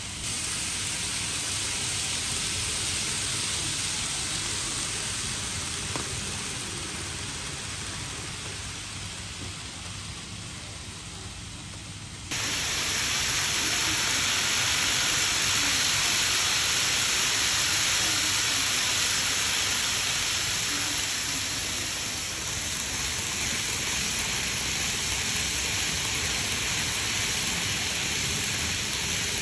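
Steady rushing running noise of N-gauge model shinkansen trains on a layout's track, with no clear tones. About twelve seconds in it jumps suddenly louder and brighter.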